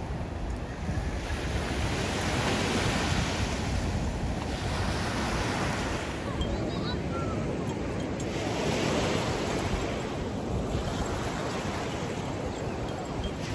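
Ocean surf washing onto a beach, the noise swelling and easing every few seconds as waves break, with wind rumbling on the microphone.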